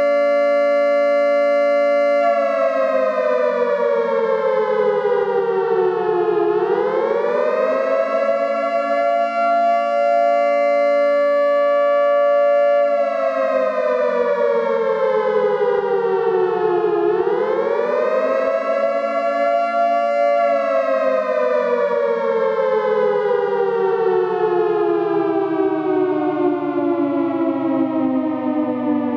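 Civil defense siren sounding an attack warning, a chord of several tones. It holds a steady pitch, falls over about four seconds and sweeps back up, holds, then falls and rises again, and near the end sinks in one long slow fall.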